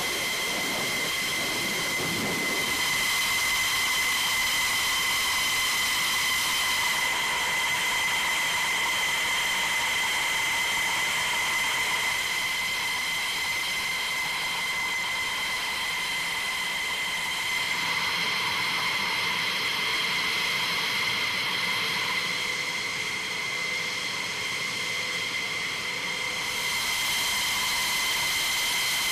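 Jet engine idling on the flight line: a steady high-pitched turbine whine over a rushing hiss, holding one pitch throughout.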